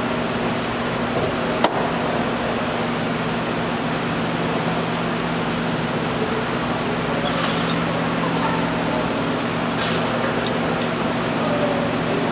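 Steady mechanical hum with a low drone, with a few light clicks and clinks from harness-belt hardware being handled at the seat, the sharpest about two seconds in and another near ten seconds.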